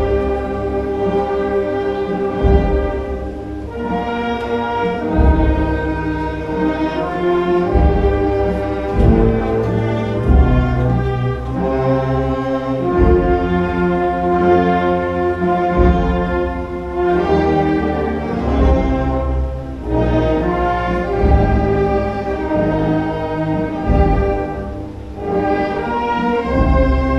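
Orchestral music: sustained chords that change every second or two over a strong low bass.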